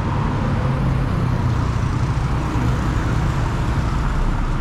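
Steady road traffic: a continuous low rumble of passing cars and engines.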